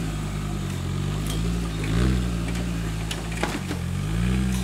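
Off-road buggy's engine running at low revs under load on a steep sandy climb, its pitch rising briefly about two seconds in and again near the end. A few sharp clicks sound just past the middle.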